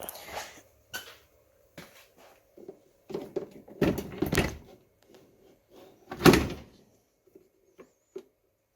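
Clunks and knocks of a lawn-tractor battery being handled and set back into its place in the mower. There are several scattered knocks, with the loudest thuds about four seconds in and again a little after six seconds.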